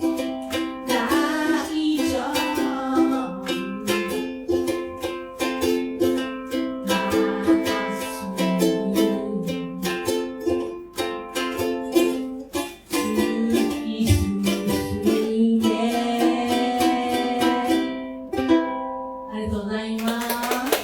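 Ukulele strummed in a steady, quick rhythm, chords ringing on.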